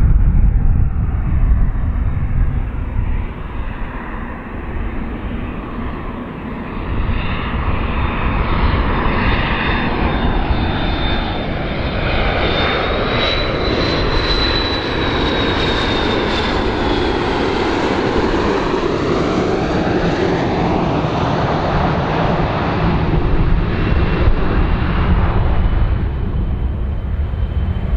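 McDonnell Douglas MD-82 airliner flying low on landing approach, its two rear-mounted Pratt & Whitney JT8D turbofans running loud. A high engine whine rises and then drops in pitch about halfway through as the plane passes close, over a steady low rumble and a sweeping rushing hiss.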